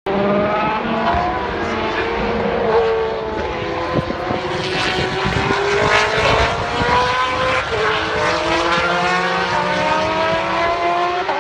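Old naturally aspirated Formula 1 car engines running at high revs. Several overlapping engine notes climb steadily in pitch as the cars accelerate.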